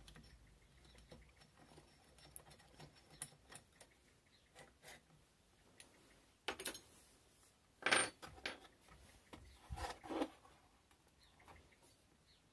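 Small metal clicks and ticks of an Allen key and screw as the trigger guard screw is undone on an air rifle, then a few louder clunks of the rifle's metal action and wooden stock being handled, the loudest about eight seconds in.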